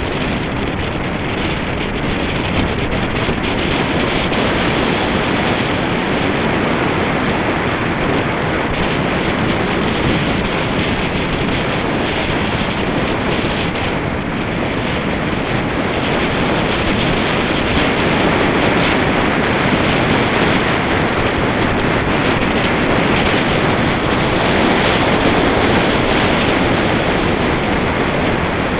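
Steady rush of wind on the microphone of a camera mounted on a road bike's handlebars while riding at speed.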